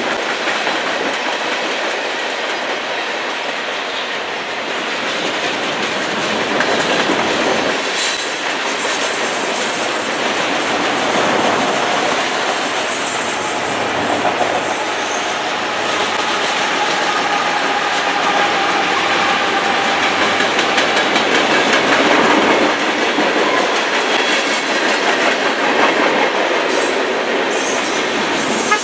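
Freight cars of a mixed freight train rolling steadily past: continuous wheel-on-rail noise from hoppers, an autorack and tank cars. A faint wheel squeal rises above it in the middle.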